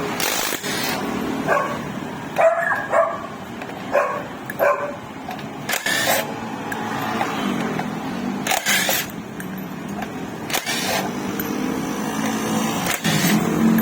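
A dog barking several times in short bursts, with a few sharp knocks in between.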